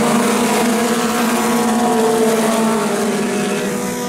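A pack of four-cylinder mini stock race cars running together around a dirt oval. Several engine notes overlap and shift slightly in pitch, dipping a little near the end.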